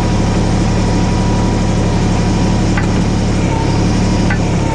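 Kubota BX25 compact tractor's three-cylinder diesel engine running steadily at a slightly raised idle, with a small change in its low tone about three and a half seconds in and a couple of faint clicks.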